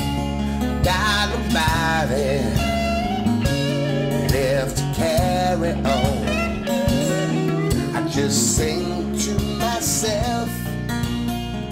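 Blues song with guitar playing.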